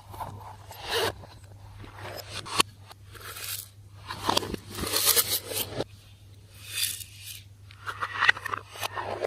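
Slime being mixed and worked by hand: irregular bursts of sticky crackling and scraping, with a few sharp pops.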